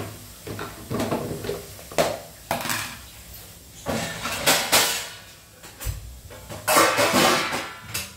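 Kitchen utensils clattering: pots, dishes and spoons knocked and set down in a string of irregular clinks and knocks, with a longer rattle near the end.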